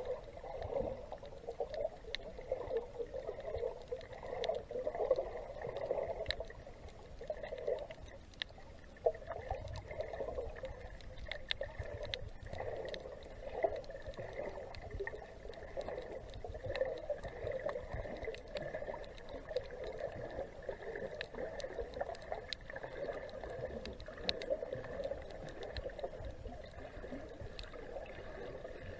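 Water sloshing and gurgling around a camera held underwater while snorkeling, a muffled wavering wash with many small scattered clicks.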